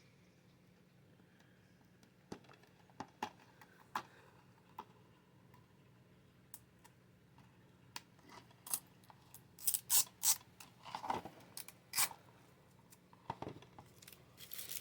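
Faint clicking and scratching of a security sticker being picked at and peeled off a plastic DVD case. Scattered clicks at first, then a run of louder scraping near the middle and end.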